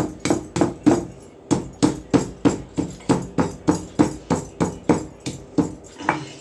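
Dry ginger being pounded on a flat stone grinding slab (pata): stone knocking on stone in a steady run of sharp knocks, about three a second, with a brief pause just after a second in.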